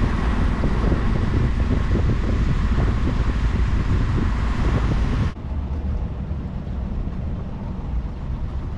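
Wind buffeting the microphone over the low rumble of a sailboat motoring under engine power. About five seconds in, the hiss drops away abruptly, leaving a quieter, duller engine rumble.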